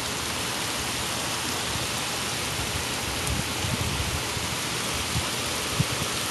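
Heavy rain falling steadily, a dense even hiss, with a few soft low thumps around the middle and near the end.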